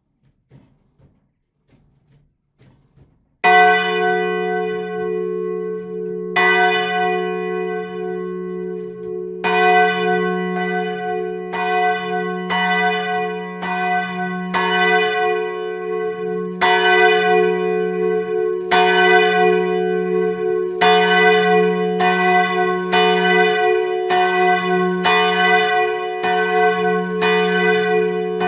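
Russian Orthodox church bells ringing the Easter peal. A few faint clicks, then the bells start about three and a half seconds in and are struck again and again, roughly once a second, with a steady low hum ringing on underneath.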